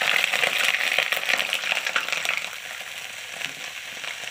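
Cauliflower florets frying in hot oil in a kadhai: a dense sizzle full of fine crackles. It is loudest for the first couple of seconds, then eases off a little.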